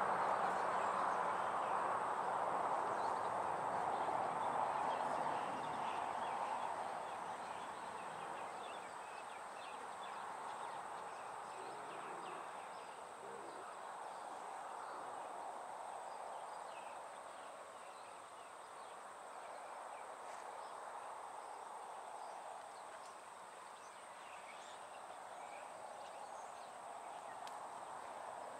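Outdoor ambience: an even hiss that slowly swells and fades, with a faint steady high tone and scattered faint short high chirps.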